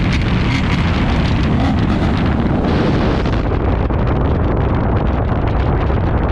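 Modified C7 Corvette Grand Sport's 6.2-litre V8 revving high and loud as the car spins its rear tyres and slides on the wet road, with tyre spray and wind noise on the microphone.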